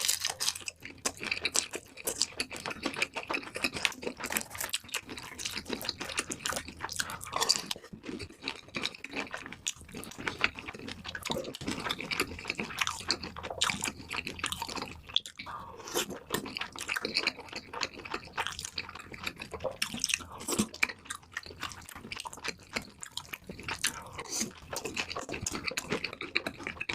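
Close-up crunching and chewing of saucy fried chicken cutlet: dense, irregular crackles of the breading being bitten and chewed, with some wet, sticky mouth sounds from the sauce.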